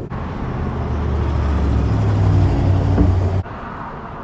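Motor vehicle engine rumbling nearby, growing steadily louder, then cutting off abruptly about three and a half seconds in.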